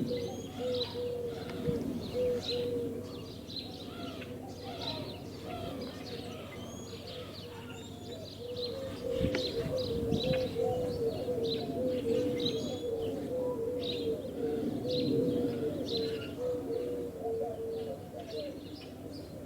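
Outdoor birdsong: a bird repeating a short, low, cooing note about twice a second in long runs, with other birds chirping higher up, over a steady low background rumble.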